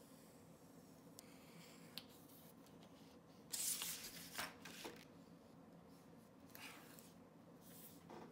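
Thick paper pattern being handled and moved about on a cutting mat: short dry rustles and scrapes, the loudest cluster about three and a half to five seconds in, with a few quieter rustles later.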